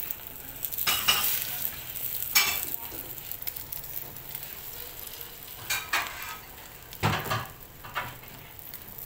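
Beaten egg sizzling as it fries on a flat griddle (tawa), with a spatula scraping and tapping against the pan several times; the loudest knock comes about seven seconds in.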